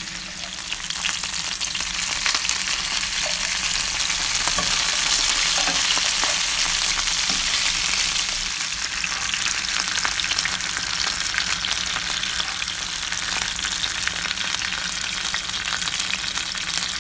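Chicken legs sizzling steadily as they pan-fry in olive oil, with scattered light clicks as metal tongs turn the pieces.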